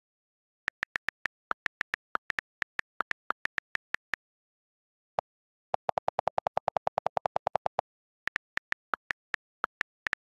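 iPad on-screen keyboard key clicks: a series of typing taps, then a fast run of lower-pitched delete-key clicks, about a dozen a second, as the held delete key erases the line, then more typing taps near the end.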